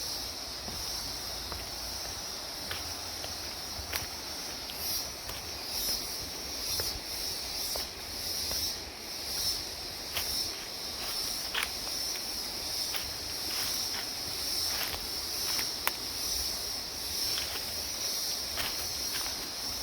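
Steady high-pitched insect chorus, with irregular footsteps along a garden path.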